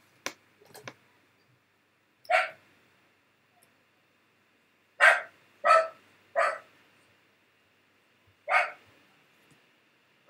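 A dog barking: five short single barks spaced a second or two apart, with three of them close together around the middle.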